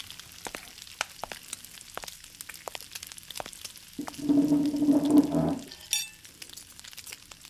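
Eggs frying in butter in a pan, sizzling with a steady crackle. About four seconds in, a pitched scraping groan lasts nearly two seconds and is the loudest thing heard. A sharp clink follows just after it.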